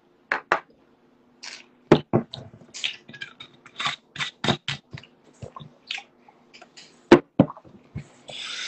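Irregular sharp clicks and knocks close to the microphone, the loudest about two seconds and seven seconds in, over a faint steady hum; a short hiss comes near the end.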